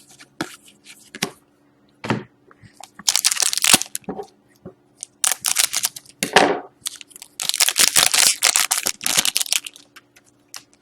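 Crinkling and rustling of a foil trading-card pack wrapper and cards being handled, in several short crackly bursts, the longest in the second half.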